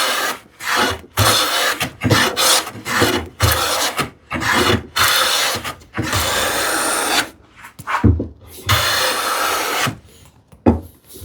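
A hand tool worked back and forth on wood in separate scraping strokes: a run of short, quick strokes, then two longer strokes of over a second each near the end.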